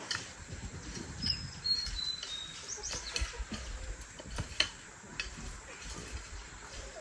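Chickens: a few short high chirps, some falling in pitch, about one to two seconds in, over scattered light taps and rustling.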